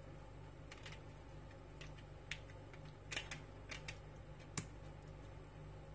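Metal spoon spreading tomato sauce over pizza dough on parchment paper: faint, scattered light scrapes and ticks, a little sharper one near the end.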